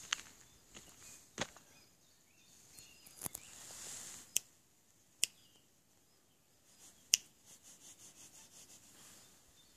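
Footsteps on a gravel path, with a handful of sharp clicks a second or so apart, the loudest about seven seconds in, and a short run of quick, even ticks, about four a second, near the end.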